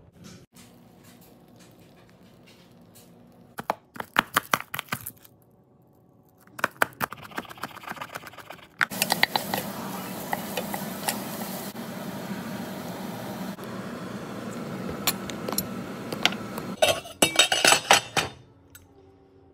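Kitchen cooking sounds: a few bursts of clinks and knocks, then a steady sizzle of chopped vegetables frying in a stainless-steel pot while a wooden spoon stirs and scrapes. Near the end comes a clatter of the metal lid on the pot.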